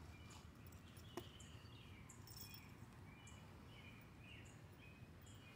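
Near silence: faint outdoor background with a few faint, short, high chirps and one soft click about a second in.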